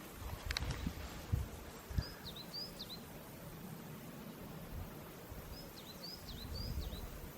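A songbird sings two short phrases of quick slurred whistled notes, a few seconds apart, over a low rumble of wind on the microphone with a few low thumps near the start.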